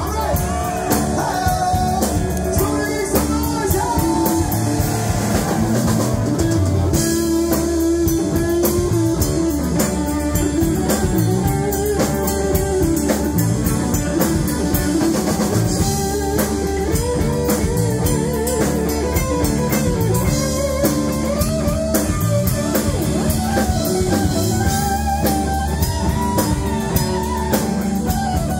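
A live rock band playing amplified, with electric guitars, bass guitar and drum kit.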